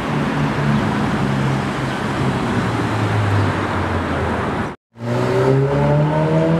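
Ferrari F8 Spider's twin-turbo V8 running at low speed in street traffic; after a short break in the sound a little past halfway, it revs up as the car pulls away, its pitch rising.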